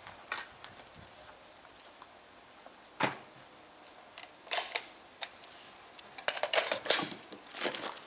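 Sharp metallic clicks and clacks from an FN FAL rifle being handled on the bench, with a magazine being seated. A single click comes about three seconds in, and a quick run of clatter follows near the end.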